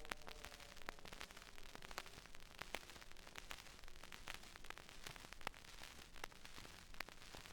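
Crackle and hiss of a 78 rpm shellac record's surface noise: a steady low hiss with irregular sharp clicks and pops. The last faint falling tone of the air raid siren dies away over the first few seconds.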